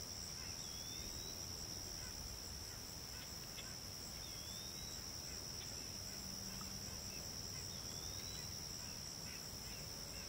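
Steady high-pitched chorus of insects such as crickets. Over it, a faint bird gives a short rising whistle three times, about three and a half seconds apart.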